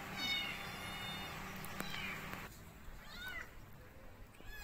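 Short, high-pitched animal calls that rise and fall in pitch, repeated a few times, with a steady low hum under them in the first half.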